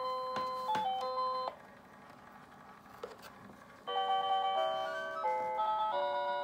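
Mr. Christmas animated skating pond's built-in player sounding a simple chiming electronic tune. The tune stops about a second and a half in, and after a couple of seconds of near-quiet with a single faint click, the next tune starts.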